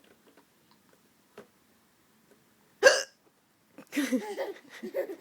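A woman's single loud hiccup about three seconds in, followed by a baby babbling in response.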